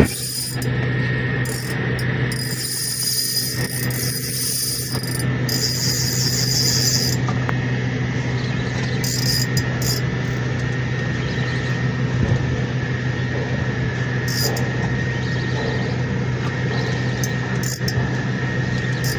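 Steady engine hum holding one pitch throughout, with a faint hiss that comes and goes.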